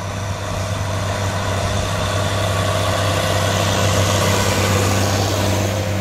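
Case MX110 tractor's six-cylinder diesel engine running steadily under load while pulling a seed drill across tilled soil, with a broad hiss of the field work over the engine's low hum. It grows louder, peaks about four to five seconds in, then eases off.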